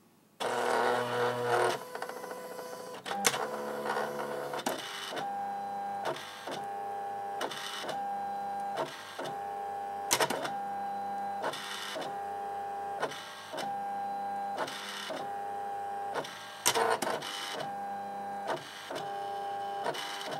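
Electronic die-cutting machine cutting a sheet: its motors whine in short stop-start runs as the blade carriage and rollers move, with clicks between the moves. It starts about half a second in, louder at first.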